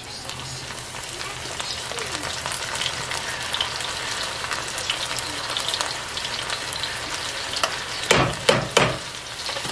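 Onions and freshly added pickled ginger sizzling in a frying pan, a steady hiss, with a few louder knocks near the end as a hand works over the pan.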